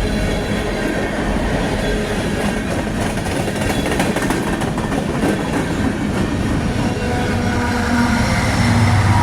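Union Pacific coal train cars rolling past with steady wheel rumble, rail clatter and faint flange squeal. In the last second or two a diesel locomotive's low engine hum grows louder as a locomotive approaches, likely the rear distributed-power unit.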